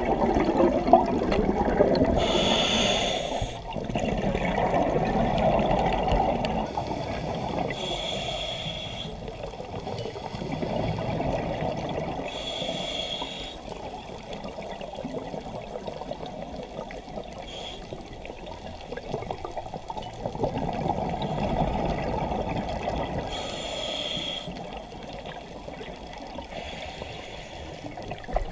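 Scuba diver breathing through a regulator underwater: a short hiss on each inhalation, about every five seconds, with the low rumbling gurgle of exhaled bubbles in between.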